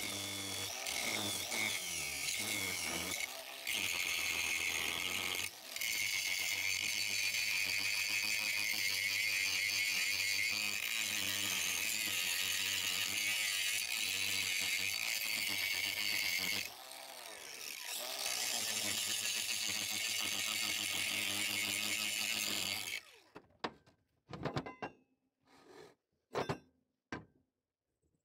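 Cordless angle grinder grinding steel flush, running steadily with a few brief dips. It stops near the end, and a handful of sharp knocks follow.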